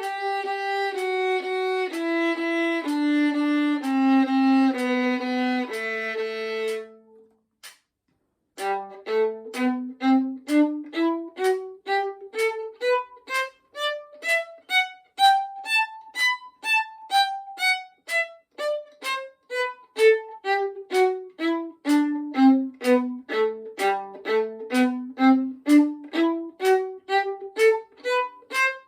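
Solo violin playing a G major scale. A descending scale in tremolo, each note held about a second, comes down to the low G and stops. After a brief pause comes a two-octave staccato scale in short detached notes, up to the top, back down to the low G and starting up again.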